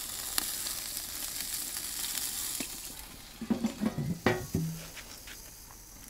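Chicken wings sizzling on the grate of a hot smoker box over a wood fire: a steady fat sizzle that fades after about three seconds. A few short squeaks and knocks follow, with a sharp metal clank a little after four seconds as the smoker's steel lid is handled.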